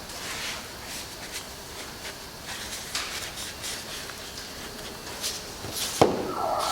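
Light handling sounds, scattered small taps and rubs, with a sharp knock about six seconds in. Just after the knock a steady buzzing tone starts.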